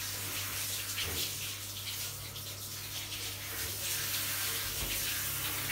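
Handheld shower head spraying water onto a wet dog's coat in a shower stall: a steady hiss of running water, with a steady low hum underneath.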